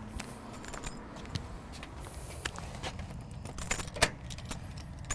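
A bunch of keys jangling and clicking in a door lock and against a brass doorknob as the door is unlocked: a run of sharp metal clicks, the loudest near the end.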